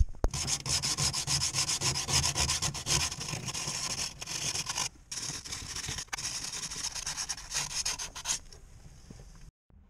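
Rapid hand-worked scraping and rubbing strokes on the bare steel body panels of a Subaru Impreza GC8, as the sound-deadening material is stripped off. The strokes break off briefly about five seconds in and stop a little before the end.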